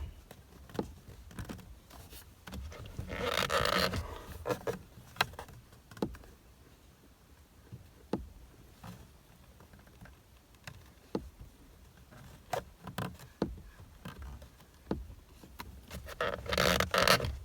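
Flathead screwdriver clicking and scraping against the plastic back of a VW steering wheel while probing for the airbag's spring clip: scattered sharp clicks, with two longer scraping rustles about three seconds in and near the end.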